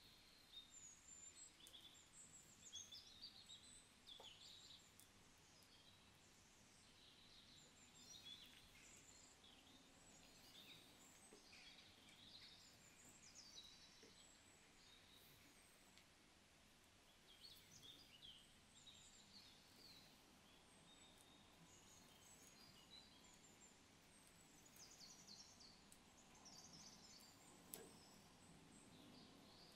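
Near silence: faint room tone with scattered faint, high chirping, like small birds outside.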